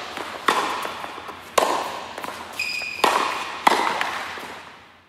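Edited transition sound effect: about five sharp, echoing hits at uneven intervals, with a short high ping in the middle, fading out at the end.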